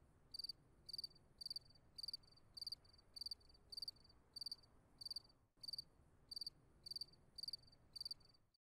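Cricket chirping, faint and evenly spaced, a little under two short high trilled chirps a second. It plays over an otherwise silent track, as the comic 'crickets' effect for an awkward silence.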